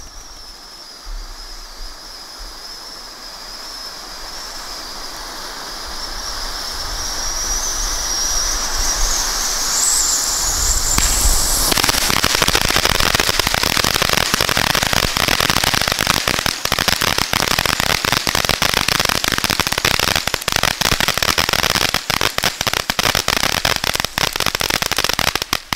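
Winda iFTN ground fountain firework spraying sparks with a hiss and a high whine that slowly climbs in pitch and grows louder. About twelve seconds in it breaks into loud, dense crackling, many cracks a second, which keeps up until the fountain cuts out at the very end.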